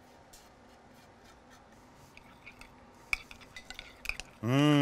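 A metal spoon stirring thick ranch dressing in a glass mixing bowl: light irregular clicks and taps of the spoon against the glass, getting busier about two seconds in. Near the end a person gives a short voiced sound, rising and falling in pitch.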